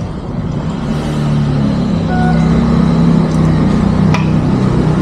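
Sidecar motorcycle engine running under way, its note building about a second in and then holding steady, over wind and road noise.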